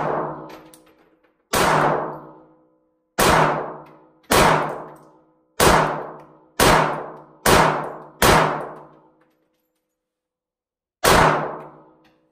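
A Glock 48 9mm pistol fires eight shots at an uneven pace, each ringing out and fading over about a second. There is a pause of nearly three seconds before the last shot, near the end.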